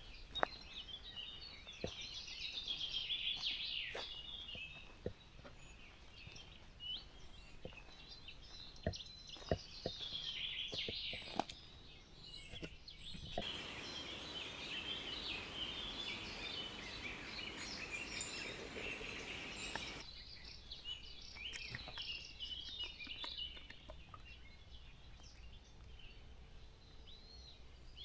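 Morning bird chorus: many songbirds singing overlapping chirping phrases. A steady hiss runs for several seconds midway, and a few sharp clicks stand out.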